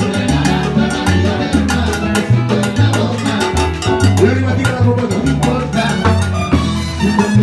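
Cuban timba band playing live: a prominent bass line from an electric upright bass under drum kit and percussion.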